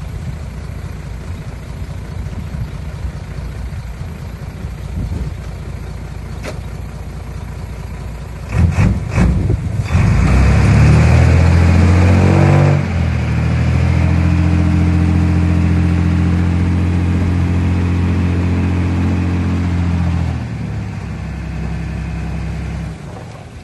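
Heavy earthmoving machine's diesel engine running, then a few sharp clanks. The engine revs up hard under load with a loud rush of noise for a couple of seconds, holds at steady high revs for about eight seconds, then drops back and eases off near the end.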